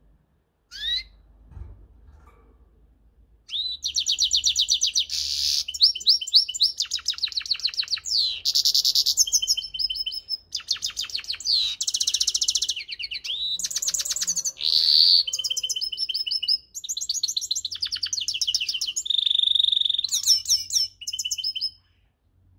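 Caged finch singing: a single short rising call about a second in, then a long song of rapid trills and twittering phrases, broken by brief pauses, that runs from about three and a half seconds in until shortly before the end.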